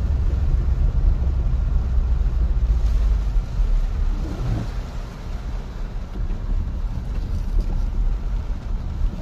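Toyota Corolla driving over a wet dirt track, heard from inside the cabin: a steady low rumble of tyres and engine with rain on the windscreen, easing a little about halfway through.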